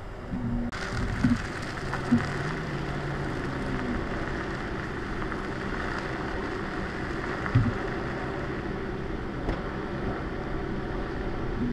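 Steady hum and hiss of idling police SUVs, with a few short knocks.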